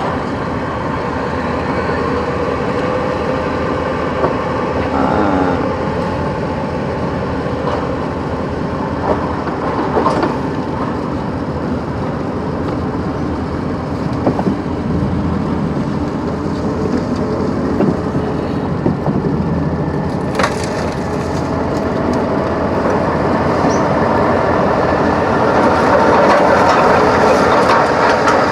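Steady vehicle engine and yard machinery noise with scattered sharp knocks and crunches. It gets louder near the end.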